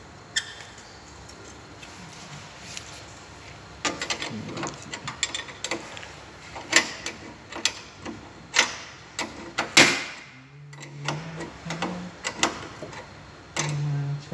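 Irregular sharp metal clicks and clinks from a wrench working a bolt on an elevator car door operator's hanger plate, starting about four seconds in and coming thick after that.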